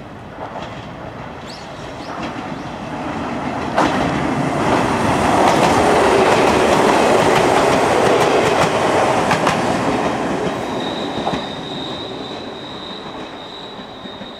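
Ichibata Electric Railway 5000-series electric train passing close by. Its running noise builds, peaks from about four seconds in, with sharp knocks of the wheels over rail joints, then fades as it moves away. A thin, steady high squeal comes in near the end.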